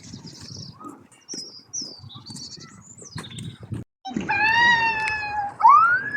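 An animal calling twice, loud and high: one long, slightly falling cry, then a shorter cry that rises and falls. Before that come faint high chirps, like small birds.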